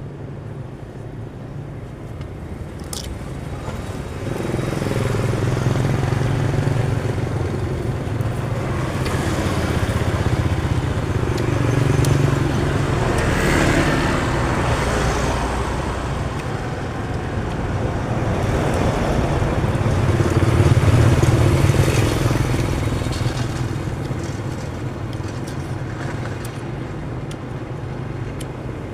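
Road traffic, with motor vehicles going by. A steady engine hum swells and fades several times as vehicles pass.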